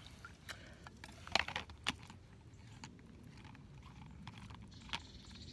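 A few light, scattered clicks and knocks of a plastic LifeStraw filter water bottle being handled as its lid is put on.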